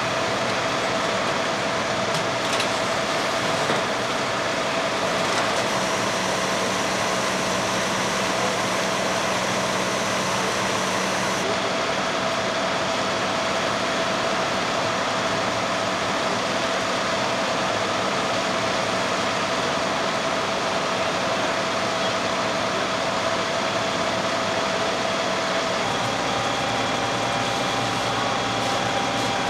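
Steady, unbroken mechanical running noise of fire apparatus engines and pumps at a working fire, a constant hum with a few steady tones in it.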